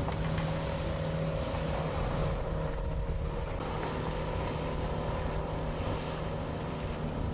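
MacGregor 26M's outboard motor running steadily at speed under power while towing a water skier: a steady drone with a rush of wind and water noise over it.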